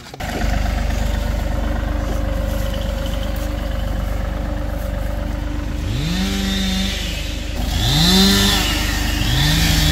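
An engine runs steadily and is revved up three times in the second half, each time its pitch climbing quickly and then holding high.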